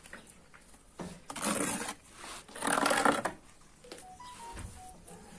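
Steel mason's trowel scraping and spreading mortar along the top of a block wall, in two main scraping strokes about a second and a half apart.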